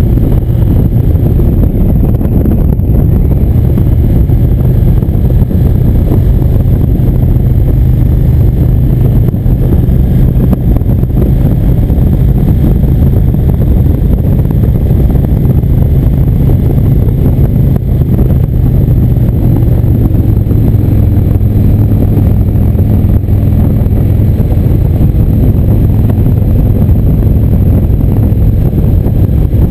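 Indian motorcycle's V-twin engine running steadily at cruising speed, heard from the rider's position with wind noise on the microphone.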